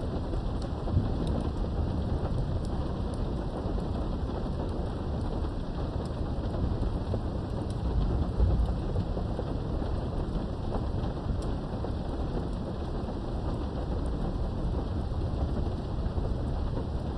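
Steady rain heard through a window during a thunderstorm, with a low thunder rumble that swells about halfway through.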